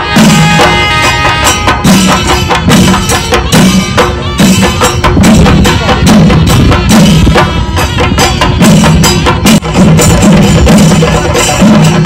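Kerala chenda drum ensemble (chenda melam) beaten with sticks in a fast, dense, unbroken rhythm, loud throughout.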